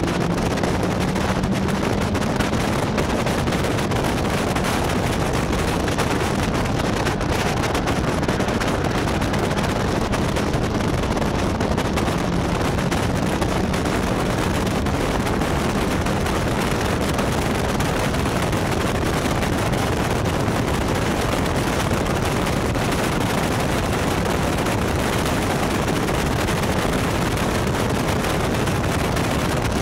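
Caterham race car at speed on track, heard from a camera on its open cockpit's roll bar: a steady, rough rush of wind buffeting the microphone, with the engine note faint beneath it and rising briefly at the start.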